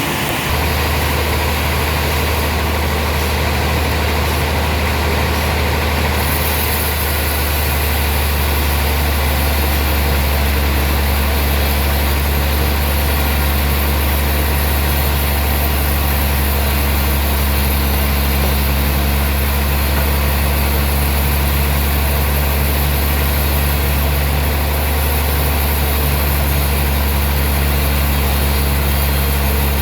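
Large sawmill machinery running steadily: a deep, constant hum that comes in about half a second in, over a steady hiss.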